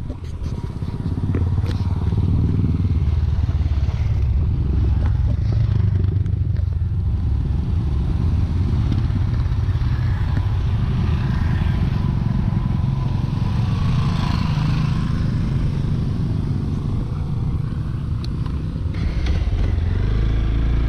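Motorcycle engines running: a group of trail motorcycles riding up a rough, potholed road and past, with the recording bike's own engine close by and pulling away near the end.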